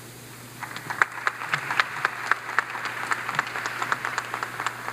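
Audience applauding: clapping that starts about a second in and dies away near the end.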